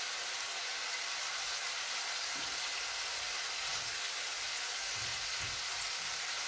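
Sliced artichokes sizzling steadily in a frying pan, with a wooden spatula stirring them and giving a few soft knocks against the pan.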